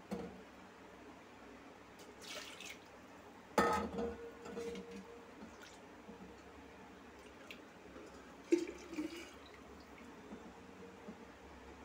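A few scattered knocks and clinks of kitchen utensils over quiet room tone. The loudest, about four seconds in, rings on briefly.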